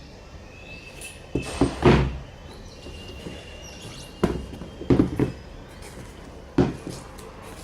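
Handling noise: a series of dull thumps and knocks, a cluster of three near the start, two or three more in the middle and one near the end, over a low steady background hiss.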